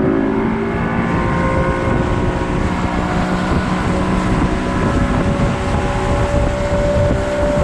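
Motorboat engine running steadily with the boat under way, its pitch edging slightly higher in the second half, with wind buffeting the microphone.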